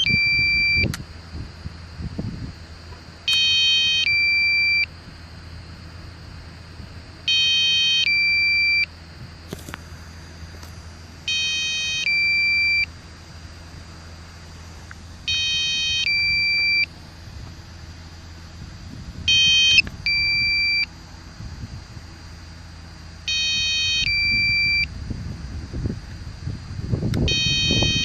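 Drone controller's low-battery alarm beeping about every four seconds: each time a quick high chirp, then a two-note beep. It warns that the drone's battery is low. A low rushing noise rises near the end.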